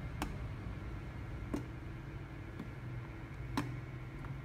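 Thin metal pry tools clicking and ticking against the rim of a Crazybaby speaker's housing as its bottom cover is pried loose: three clear sharp clicks spaced a second or two apart, with a few fainter ticks, over a low steady hum.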